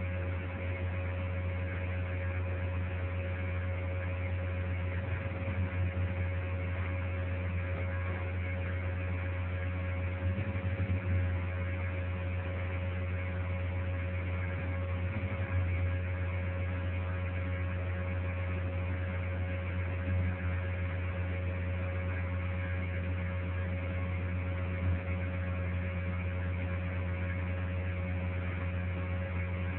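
Steady low electrical hum with a constant hiss, broken by a few small bumps in level.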